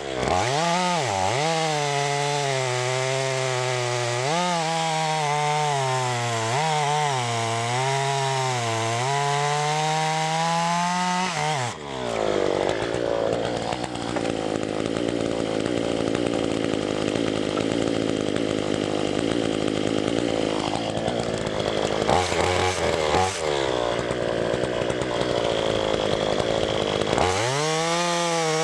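Chainsaw ripping lengthwise through oak, the engine at high revs with its pitch wavering as the bar works the cut. About twelve seconds in the sound turns rougher and noisier, then the clean high-pitched engine tone comes back near the end.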